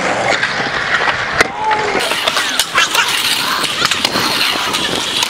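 Stunt scooter's small hard wheels rolling on the concrete of a skatepark bowl, a steady rushing rumble broken by a few sharp clacks as the scooter hits the surface.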